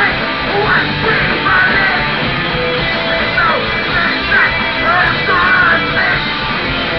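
Hardcore punk band playing live: distorted electric guitars, bass and drums, with a vocalist shouting into the microphone over them.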